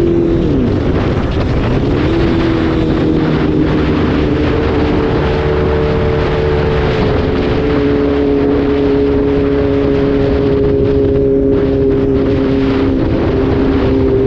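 Motorcycle engine running at cruising speed under wind rushing over the microphone. About half a second in, the engine note dips sharply and then climbs back up over the next second or so, then holds steady.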